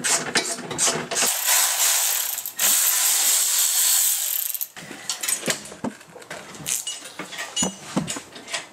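Hand ratchet wrench clicking rapidly as bolts are undone under the car. About a second in it gives way to a loud steady hiss lasting some three seconds, then scattered clinks and knocks of tools and metal parts.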